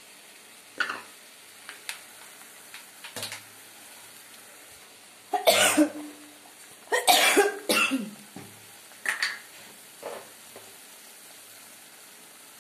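A woman coughing: a few light coughs, then two loud coughing bouts about five and seven seconds in, and a couple more short ones after. Under them, faint sizzling of masala frying in oil in a steel karai.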